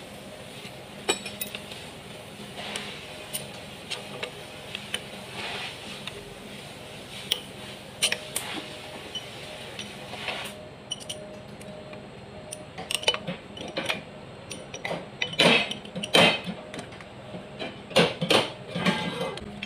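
Metal clinks and knocks of a wrench against the alternator, its bracket and bolts on an engine block, as the alternator is being unbolted. They come sparsely at first, then in quicker, louder clusters in the last few seconds.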